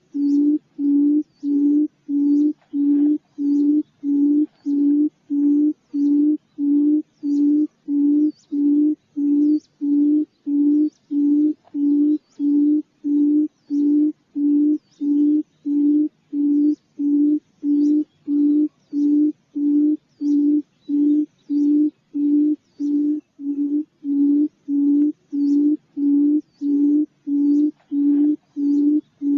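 Quail lure call: one low hooting note repeated very evenly, a little under two times a second, with faint high chirps above it.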